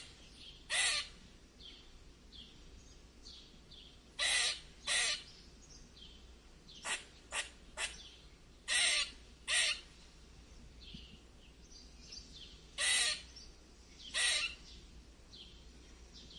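Squirrel squeaking: harsh, raspy calls about a third of a second long, mostly in pairs, with a quick run of three shorter ones midway. Fainter short chirps sound between them.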